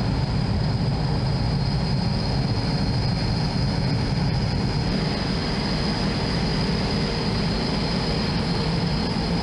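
Steady cabin noise inside a NATO E-3A AWACS aircraft: a deep, even drone with a thin, high, steady whine above it.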